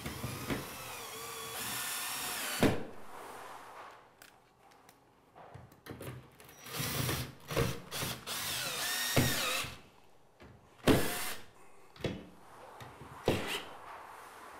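Cordless drill/driver driving screws through a metal urinal hanger bracket into a tiled wall. The motor whines in two runs, one at the start and another about six seconds in, with a few sharp knocks in between.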